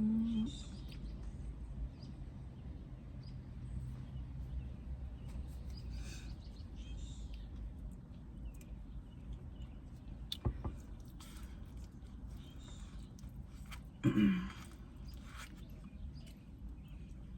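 Quiet eating sounds: soft chewing and small mouth clicks over a low steady background hum. There is a sharper click about ten seconds in, and a brief hummed "mm" about fourteen seconds in.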